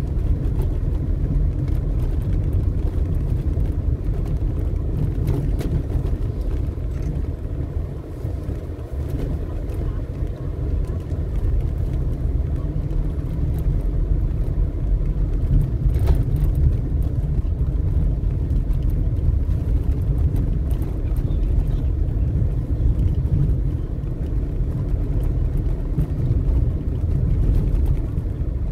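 Car driving slowly, heard from inside the cabin: a steady low rumble of engine and tyres on rough, uneven patched asphalt, with a few faint clicks.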